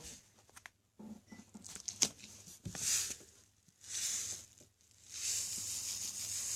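Tiny decorative sand rocks being poured onto slime, a pattering hiss in short spurts that turns steady from about five seconds in.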